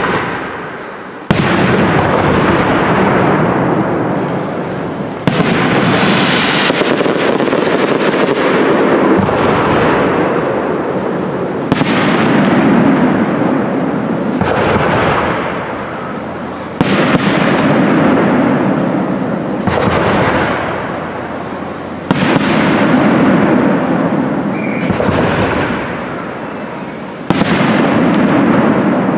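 Aerial fireworks display: large shells bursting one after another, a sharp bang every three to five seconds, each dying away over a few seconds in a long rolling rumble.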